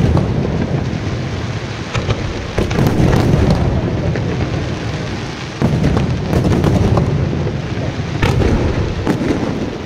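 Daytime fireworks display: aerial shells bursting overhead in a continuous barrage of heavy, rumbling booms mixed with sharp cracks. Fresh volleys set in about every three seconds.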